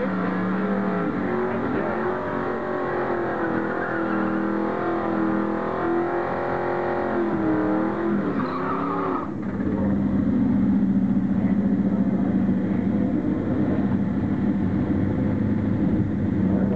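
Pontiac Trans Am's LS1 V8 revving hard through a burnout, its pitch rising and falling, with tyres spinning. After a cut about nine seconds in, a V8 idles steadily and louder, with a fine regular pulse.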